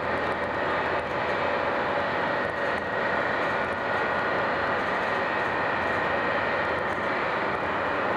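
Interior running noise of an Italo ETR 575 (Alstom AGV) high-speed train: a steady rush with a faint, steady high whine over it.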